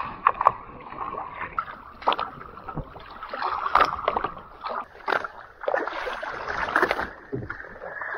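Water splashing and sloshing in quick, irregular splashes as a hooked nurse shark thrashes at the surface beside a boat's hull.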